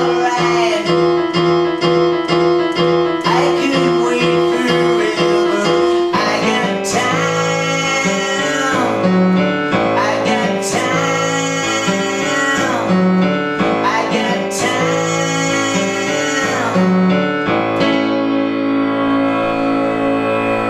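Piano-led rock music with faint singing. A repeated keyboard chord pattern changes to a fuller arrangement about six seconds in and shifts again near the end.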